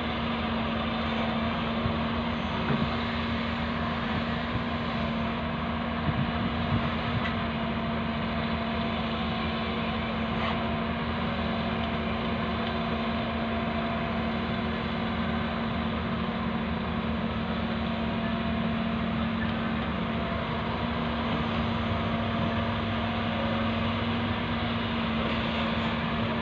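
Hyundai wheeled excavator's diesel engine running steadily under hydraulic load while it digs and swings, with a few brief knocks a few seconds in.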